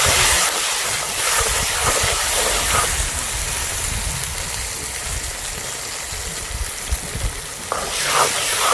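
Onion-tomato masala with turkey berries cooking in a pan, a steady sizzling hiss with a low rumble underneath.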